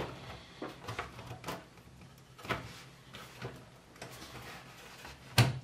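Scattered light clicks and knocks of hands handling cables and sheet-steel parts inside a small-form-factor PC case, with a louder knock near the end.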